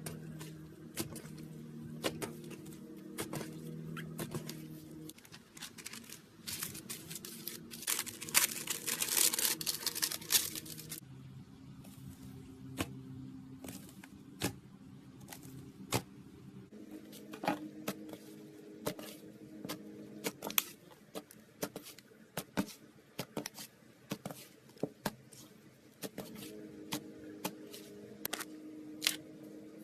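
Slime being handled: scattered sticky clicks and pops, with a dense stretch of crackling from about six and a half to eleven seconds in.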